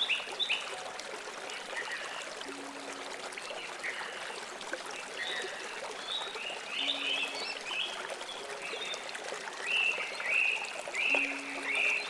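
River water running steadily, with birds chirping in short bursts of quick notes, loudest near the end. A faint low hum recurs about every four seconds.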